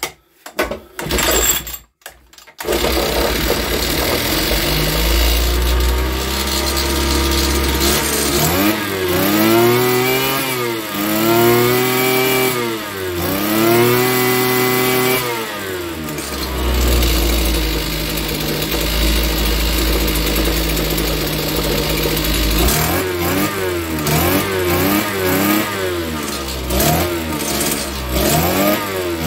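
Spear and Jackson two-stroke petrol strimmer engine started on half choke, catching about two and a half seconds in after a few short clicks, then running. It is revved up and down three times around the middle and blipped several times in quick succession near the end.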